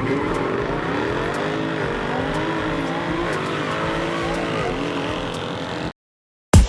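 Car engines with squealing tyres, several pitches gliding up and down together at a steady loudness, cutting off suddenly about six seconds in.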